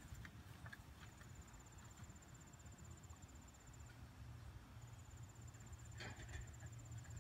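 Near silence with a faint, high, evenly pulsed insect trill in two long runs, the second starting about five seconds in, and a few faint clicks about six seconds in.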